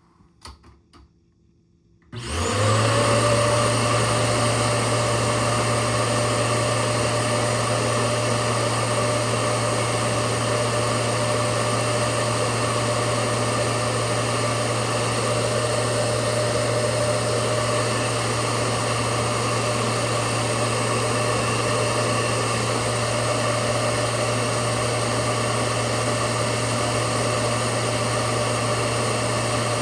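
Hoover Powerdrive XL vacuum cleaner switched on about two seconds in: the motor spins up quickly, then runs steadily at full power with air drawn through its hose.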